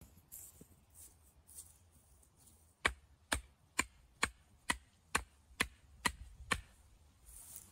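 An iron hammer striking the top of a bamboo stake and driving it into the ground: nine sharp knocks, about two a second, starting about three seconds in.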